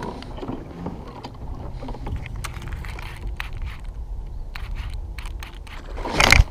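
Low wind and water noise around a kayak, with scattered light clicks, as a topwater frog is worked. Near the end comes a sudden, loud burst: a bass striking the frog and the angler setting the hook, which he calls an early hook set.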